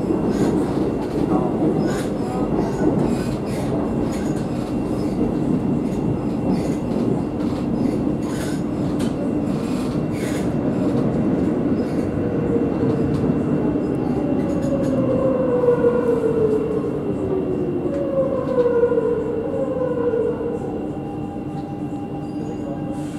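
Madrid Metro series 8400 train running through a tunnel, wheels rumbling with repeated clicks over the track, heard from inside the car. From about halfway there are several falling whines as the train brakes into the station, and it grows quieter near the end as it slows.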